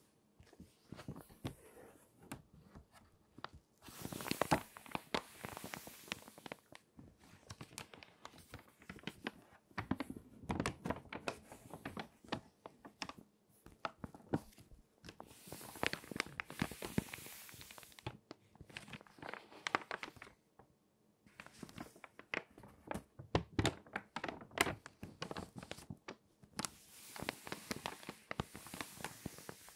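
Water-damaged magazine pages being turned and handled: crinkly paper crackling in bursts every few seconds, each turn a cluster of sharp dry crinkles.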